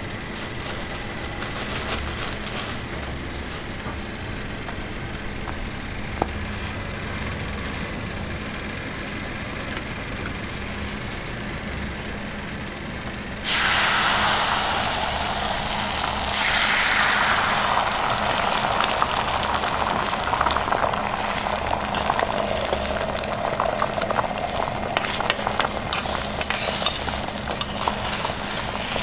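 Oil sizzling quietly on a hot griddle over a steady low hum. About halfway through, beaten egg is poured into the oiled square metal egg mold and sets off a sudden loud sizzle. The sizzle carries on, its hiss slowly deepening, with crackling spits toward the end.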